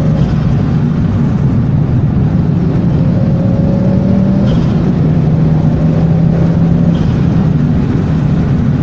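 Ford Focus ST Mk2 turbocharged five-cylinder engine running under way, heard from inside the cabin, with the loud intake noise of an aftermarket Group A induction kit in place of the standard airbox. The engine note is steady, shifting slightly in pitch around the middle.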